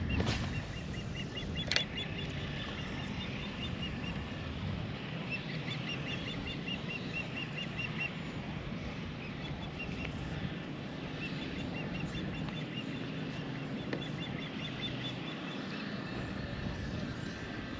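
Steady wind and water noise around a drifting kayak, with a bird calling in quick runs of short, high chirps several times over. There is a single sharp knock about two seconds in.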